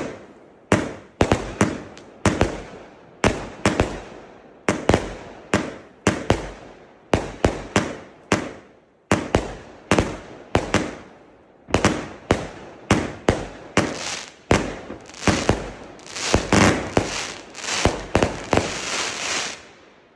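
Consumer firework battery firing its finale: shot after shot bursting overhead, about two bangs a second, each with a fading echo. Near the end the shots come thick and fast, then stop suddenly as the battery burns out.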